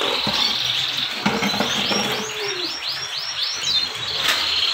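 Many caged male canaries in full song, chirping and singing together. About two seconds in, one bird sings a quick run of repeated swooping notes, about four or five a second.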